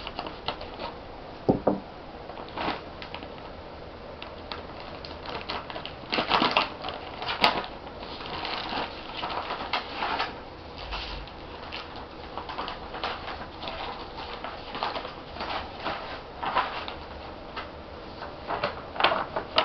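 Crinkling and rustling of cross-stitch kit packaging being handled, with irregular small clicks and taps.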